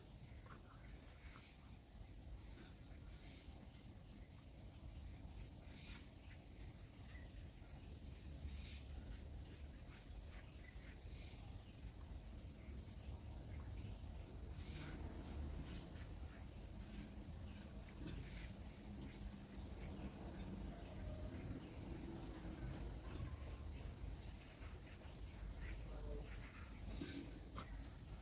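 Steady high-pitched chirring of crickets, with faint scattered clicks and handling sounds beneath.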